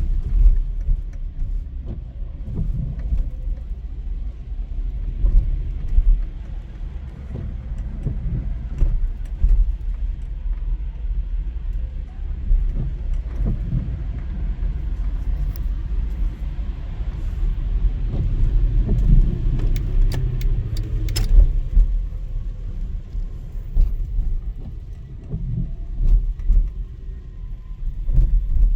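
Low, steady rumble of a car driving in traffic, heard from inside the cabin, with a faint hiss and a few scattered clicks.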